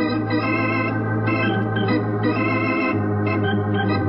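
Organ music bridge: sustained chords, with a change of chord about three seconds in, marking a scene change in a radio drama.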